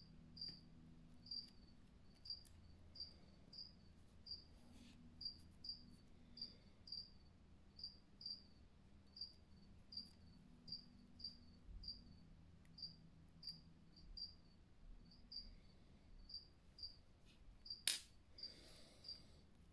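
Faint insect chirping: short high chirps repeating about two a second, with one sharp click near the end.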